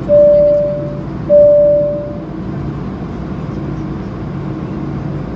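Two identical single-pitch cabin chimes, each ringing about a second and fading, over the steady hum of an Airbus A220-300's Pratt & Whitney PW1500G turbofans as the airliner taxis.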